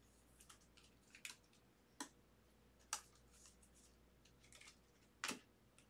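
Faint crinkling and clicking of a trading card being slid into a thin plastic sleeve and handled: a handful of short rustles and sharp ticks, the loudest about five seconds in.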